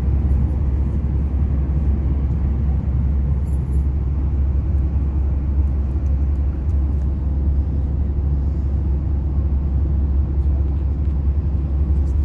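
Steady low rumble of engine and tyre noise heard inside a van's cabin while it is driven along a highway.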